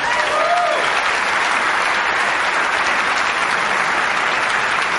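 Audience applauding steadily, with one voice giving a short rising-and-falling whoop in the first second.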